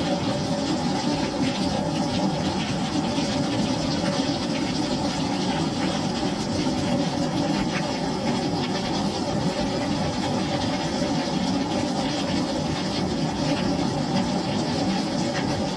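Steady rain falling on a wooden deck: an even, dense patter of drops hitting the wet boards, without let-up.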